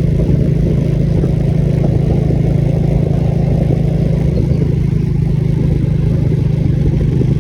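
A vehicle's engine running steadily with a low hum and road rumble while driving. The higher rumble eases off about four and a half seconds in.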